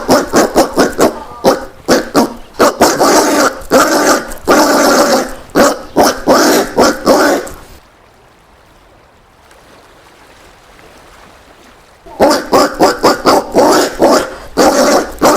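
Collared peccary (caititu) sounds: a rapid run of short, harsh calls mixed with sharp clicks. They stop for about four seconds in the middle, then start again.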